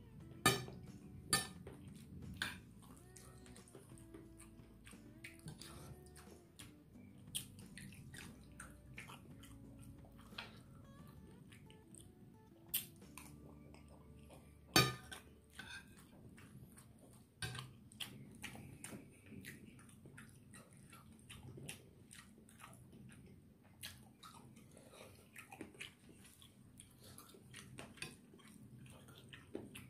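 Metal spoon clinking and scraping on a ceramic plate while eating rice, with a few sharp knocks and mouth chewing sounds between them. A faint tune plays underneath.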